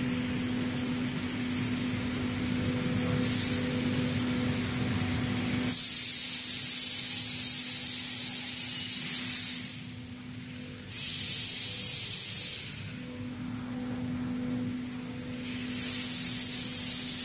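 Loud hissing blasts of compressed gas from the laser-cutting and sorting cell: three bursts, about four seconds, two seconds and a second and a half long. A steady machine hum runs underneath, dropping out while the first bursts sound.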